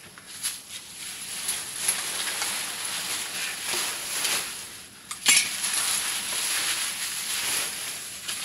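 Pot of pig fodder cooking over a fire and being worked with a utensil: a steady sizzling hiss with scattered small clinks, and one sharp knock about five seconds in.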